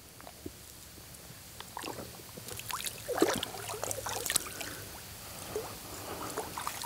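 Water splashing and sloshing as a Labrador retriever puppy is set down in a river and paddles away, with a man wading beside it. The splashing comes in irregular bursts, busiest in the middle, then settles.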